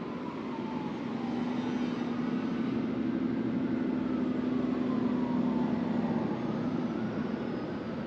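A motor vehicle passing by: a steady engine hum that grows louder to a peak about five seconds in and fades near the end, with its pitch sliding down and then up.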